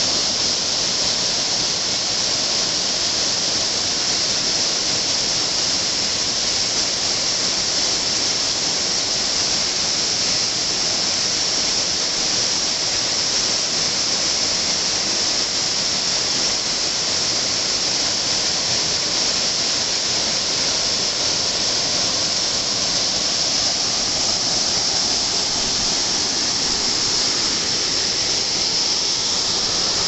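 Small forest waterfall pouring steadily into a rocky pool: a constant, even rush of falling and splashing water.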